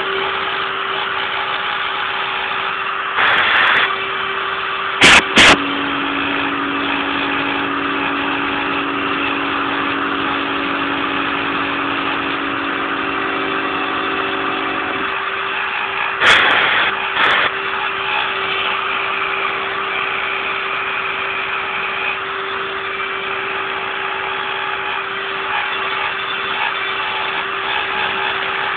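Kress 1050 router spindle running at a steady high whine while its 2 mm end mill cuts 5 mm aluminium, with a continuous hiss of cutting. A few sharp clicks stand out, a pair about five seconds in and more around sixteen to seventeen seconds, and a lower steady hum joins from about five seconds to fifteen seconds.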